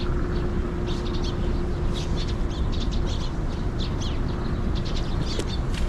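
Birds chirping in short, scattered calls over a steady low outdoor rumble.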